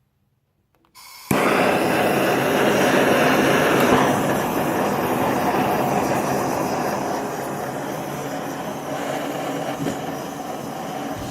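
Gas forge burner lit for heat treating a Damascus steel blade: a steady roaring rush that starts suddenly just over a second in and holds, easing off slightly.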